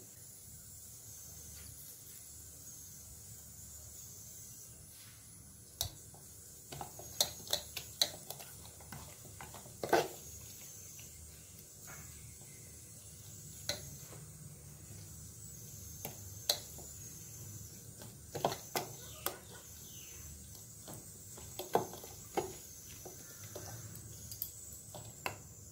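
Hands rubbing spice paste and salt into raw chicken drumsticks in a plastic bowl: quiet handling with scattered short clicks and knocks against the bowl, starting a few seconds in.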